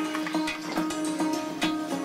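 Background music that starts suddenly: plucked guitar-like notes about every 0.4 s over a held tone.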